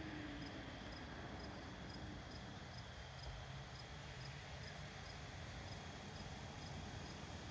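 Crickets chirping at a steady pace of about two chirps a second, over a faint steady high trill and a low rumble.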